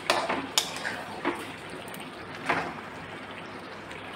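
A spatula scraping and knocking against a metal kadai as chicken pieces in a thick, oily gravy are stirred: about four short scrapes and knocks, over a low steady background hiss.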